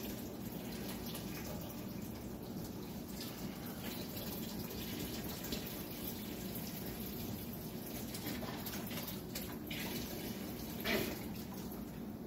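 Chicken stock pouring in a steady stream from a carton and splashing into a large stainless-steel stockpot, with a louder splash or glug near the end.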